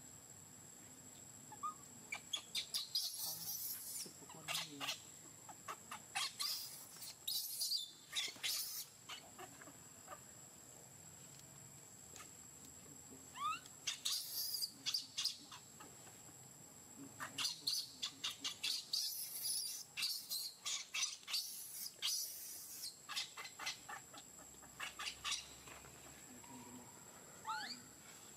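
Birds chirping in several spells of quick, very high notes, with a few short rising calls between them, over a steady faint high-pitched tone.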